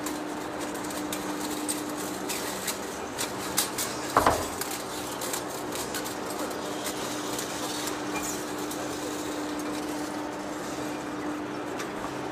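Large engine lathe running while its tool turns a big steel workpiece: a steady machine hum under a noisy cutting sound, with scattered clicks and one sharp knock about four seconds in.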